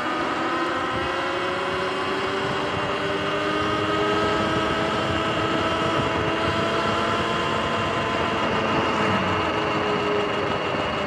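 Sur-Ron electric dirt bike under way, its electric motor whining in several steady tones that climb slowly as it gathers speed over the first half and then ease a little, over a constant rush of wind and tyre noise.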